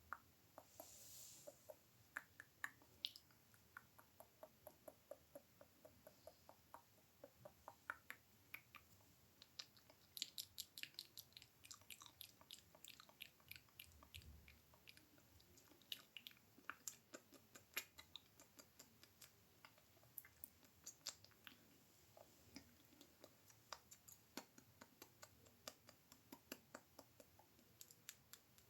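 ASMR mouth sounds: many small, sharp mouth clicks and smacks, irregularly spaced and bunching into quick runs around the middle.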